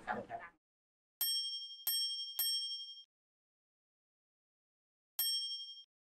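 Bright metallic chime sound effect: three quick dings about a second in, each ringing briefly on a few high tones, then a single matching ding near the end.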